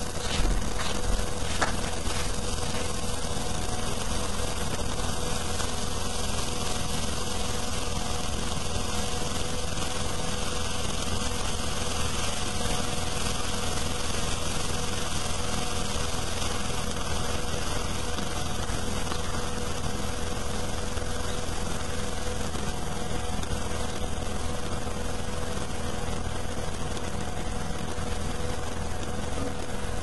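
A steady, unchanging buzzing hum with an even hiss over it, and a couple of faint clicks about a second in.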